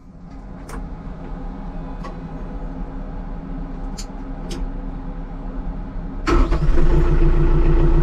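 TYM T474 tractor's diesel engine on a cold start. After a few seconds of low hum and a few clicks as the key is turned and the PTO button pressed, the engine starts suddenly about six seconds in and settles into a steady idle.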